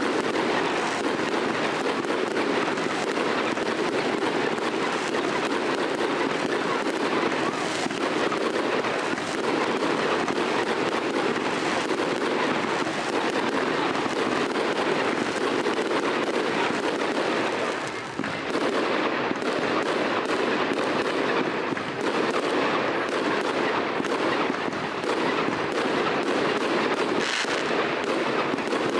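Aerial fireworks bursting in rapid succession: a dense, unbroken crackle of bangs, with a brief lull about 18 seconds in.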